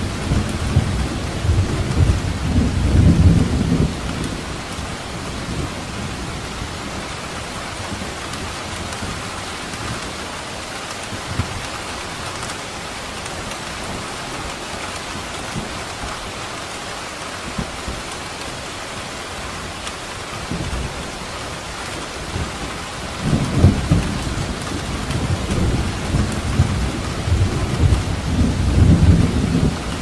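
Steady rain hissing, with thunder rumbling low and loud through the first few seconds and again over the last seven seconds.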